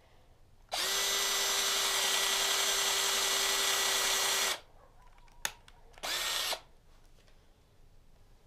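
Electric power-tool motor spinning up, running at a steady pitch for about four seconds and stopping. A sharp click follows, then a second brief run of about half a second.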